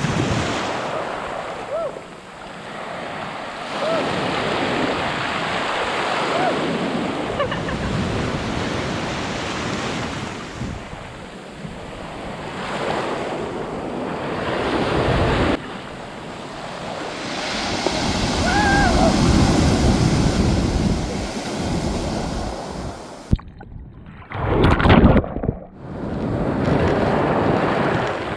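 Ocean surf washing onto a beach, with wind buffeting the microphone; the sound breaks off abruptly a couple of times.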